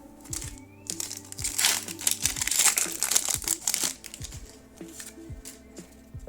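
Foil Pokémon TCG booster pack wrapper crinkling as it is torn open and handled, loudest from about one to four seconds in, over background music.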